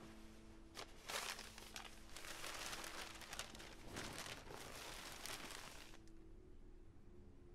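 Paper airplane crinkling and rustling as a hand grabs and handles the paper, a crackly run of small clicks from about a second in to about six seconds. Faint held music notes sound before and after it.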